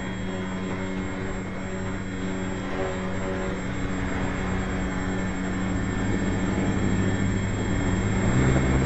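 Small model airplane's motor and propeller heard from on board, slowed down into a low, steady drone that grows gradually louder toward the end.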